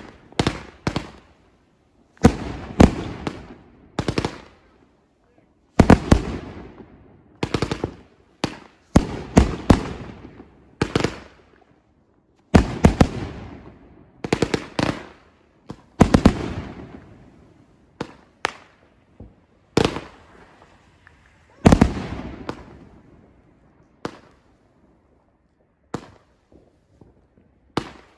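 Consumer fireworks going off in a display, a loud bang about every second, sometimes two in quick succession. Each bang is followed by a rumbling tail that dies away, and the bangs thin out near the end.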